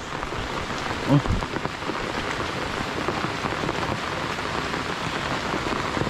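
Steady rain falling on waterlogged ground and trees, with a brief low thump just over a second in.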